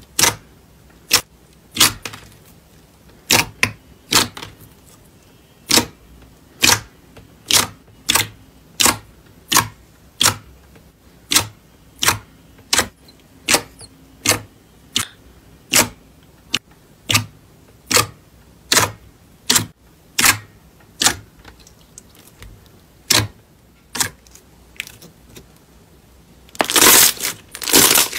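White slime pressed and squeezed by hand, giving sharp popping clicks of trapped air a little over once a second. Near the end comes a dense crackling as fluffier slime is crushed.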